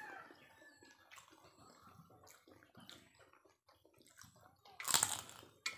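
Quiet eating sounds of people eating with their hands and sucking on food, then one loud, wet slurp about five seconds in.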